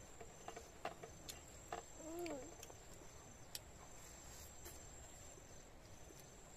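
A cricket trills faintly and steadily at a high pitch, breaking off briefly near the end. Scattered sharp clicks and a short hum of a voice about two seconds in sit over it.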